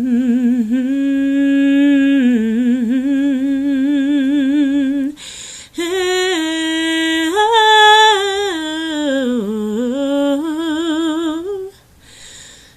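A woman singing a cappella, wordless, in two long melismatic phrases with wide vibrato, her pitch sliding up and down. She takes a short breath about five seconds in, and the second phrase ends shortly before the close.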